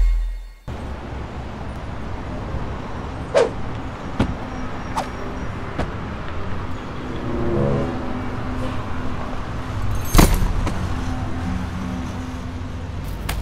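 Steady low rumble of a motor vehicle, with several short sharp knocks over it, the loudest about ten seconds in.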